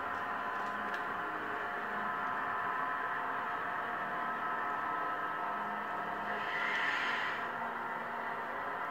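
Model train running on layout track: a steady rolling hum with a faint whine as the passenger coaches roll past, and a brief hiss about seven seconds in.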